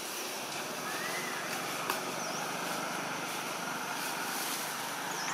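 Steady outdoor background hiss, with one sharp click about two seconds in and a few faint, short whistled notes.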